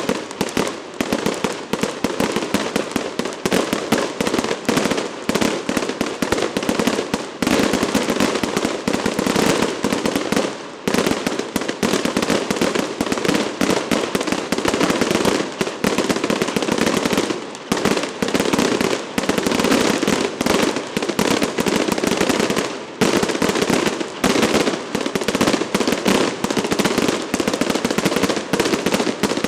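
Long strings of firecrackers going off in a fast, continuous crackle, with a few brief breaks between strings.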